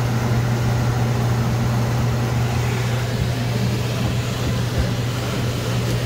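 Heat pump indoor air handler running: a steady, loud electrical hum over air noise. The unit is running with burnt wiring.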